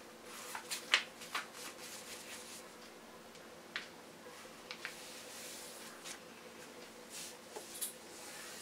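A sheet of paper being folded and creased by hand on a cloth-covered table: soft rustling with scattered sharp crackles, a cluster about a second in and another near the end.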